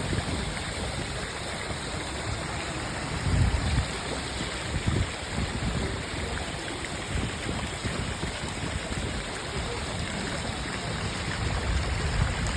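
Steady rushing of flowing water, with irregular low gusts of wind buffeting the microphone, the strongest about three and a half seconds in and again near the end.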